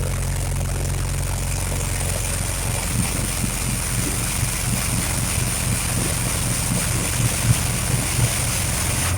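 Heavy machinery running steadily: a low diesel-type engine drone with a constant thin high whine above it.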